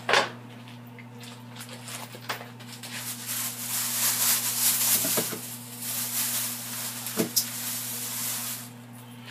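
A plastic bag rustles as it is pulled off raw ground meat in a skillet. A few seconds later comes a steady hiss that lasts about five seconds and then fades, over a low electrical hum.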